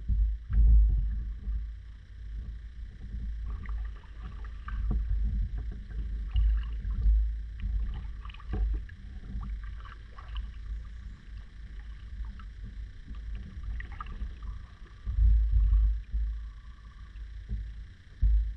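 Kayak being paddled on calm water: paddle strokes dipping and splashing, with low rumbling bumps and small knocks of the paddle against the hull, in uneven swells.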